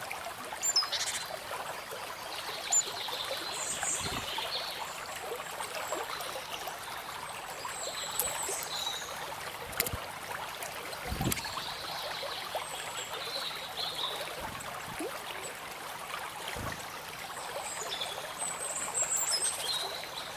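Stream trickling and babbling steadily, with small birds calling and chirping now and then.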